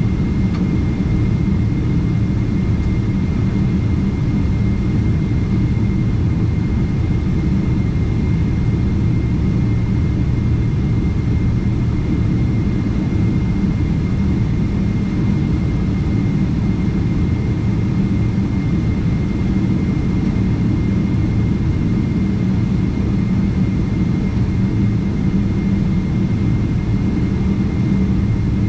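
Jet engine noise heard inside the cabin of a Boeing 777-300ER with GE90-115B engines: a steady low drone with a thin constant whine above it, holding the same level throughout.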